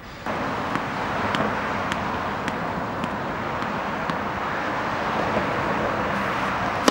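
Steady outdoor background noise of road traffic, with faint light taps about every half second early on from a tennis ball being bounced on the hard court. Near the end comes one sharp crack of a racket striking the ball.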